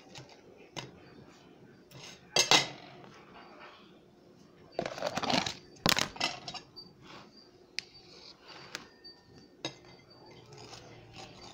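Table knife clinking and scraping against a ceramic plate as English muffins are handled: scattered sharp clinks, the loudest about two and a half seconds in, with a longer scraping, rustling spell around the middle.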